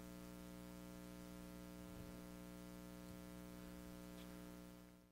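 Near silence: a faint steady electrical hum with several evenly spaced tones, fading out near the end.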